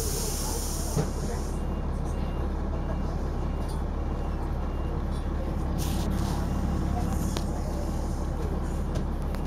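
Dennis Arrow double-decker bus running, heard from inside the cabin as a steady engine drone. A hiss of air comes in the first second or so, with shorter hisses around six and seven seconds in.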